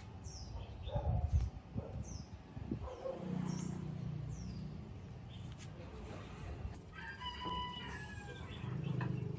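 A rooster crowing once, about seven seconds in, with small birds chirping in short falling notes before it. A dull low thump comes about a second in.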